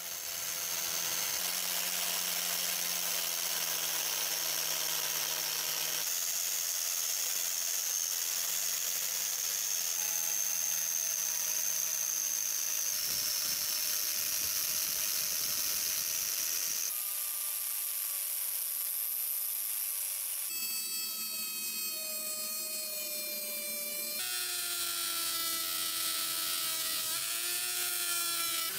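Electric rotary tools with spinning brush and abrasive wheels grinding rust off a hammer head: a steady high motor whine whose pitch jumps at abrupt cuts about every three to four seconds.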